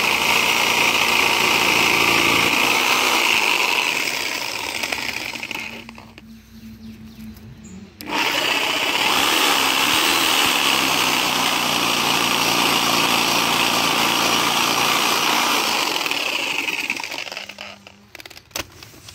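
Reciprocating saw (Sawzall) with a 12-inch demolition blade, cutting through a thick tree root in the soil. It runs for about five seconds, stops for about two, then runs again for about nine seconds and winds down near the end.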